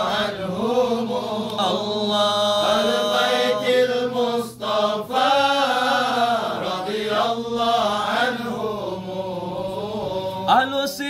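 Men chanting an Arabic devotional hymn, drawing out long, wavering melodic phrases with no clear words between the verses. A brief click sounds near the end.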